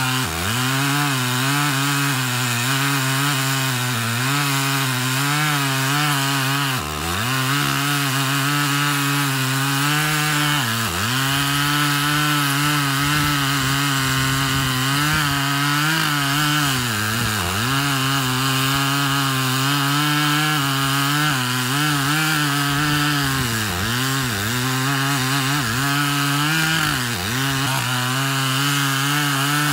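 A STIHL chainsaw with a 54-inch bar runs at full throttle, cutting into the trunk of a large dead tree. The engine pitch sags briefly several times as the saw bogs down under load in the wood, then picks back up.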